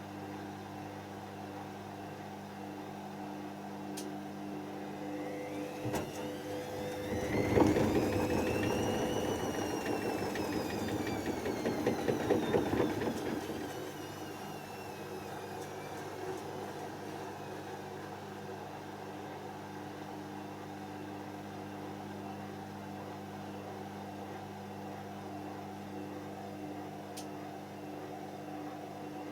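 Hoover DYN7144XD1 washing machine running mid-cycle with a steady hum. About six seconds in, its drum motor whines up in pitch and back down over several seconds, with a louder rushing noise, then settles back to the hum.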